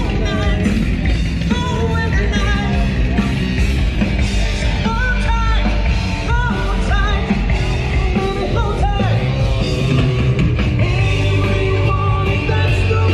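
Rock band playing, with a singer over bass, guitar and drums.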